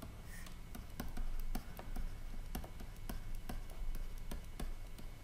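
Stylus writing on a tablet screen: a run of light, irregular clicks, about two or three a second.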